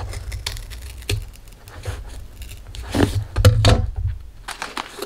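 Scissors cutting through thin cardboard in a few separate snips, the loudest cluster about three to four seconds in, with low bumps from handling the taped form on the table.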